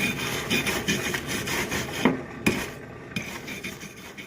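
A brush scrubbed back and forth over the rusty steel axe head, two or three scraping strokes a second, taking off rust. There are two sharp knocks a little past the middle, and the strokes grow fainter toward the end.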